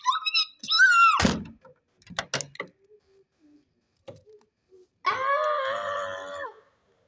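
A child's very high-pitched squealing cry, cut short by a heavy thump about a second in, then a few light knocks. About five seconds in comes a longer, lower drawn-out vocal wail.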